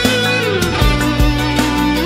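Instrumental music: a melodic electric guitar line with sliding notes over bass and drums.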